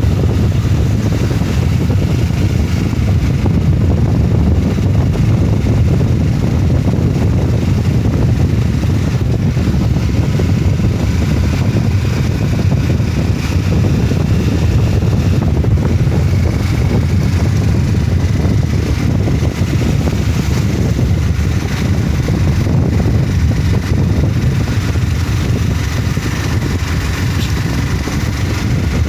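Steady rush of wind on the microphone of a moving motorcycle, with the bike's engine running underneath.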